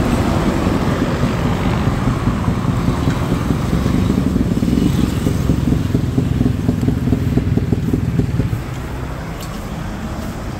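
A motorcycle engine running close by, a loud low sound with fast pulses, dropping noticeably in level about eight and a half seconds in.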